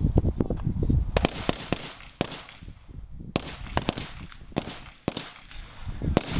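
A string of handgun shots, about a dozen at irregular spacing from about a second in, some with a short echo after them. A low rumble fills the first second.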